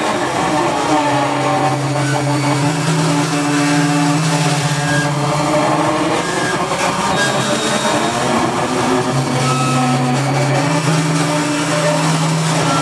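Live experimental electronic noise: a dense, harsh wash over low held drone tones that step up in pitch twice, with thinner tones drifting above.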